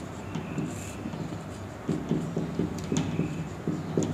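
Marker pen writing on a whiteboard: a string of short strokes, sparse at first and coming quicker and steadier about halfway through.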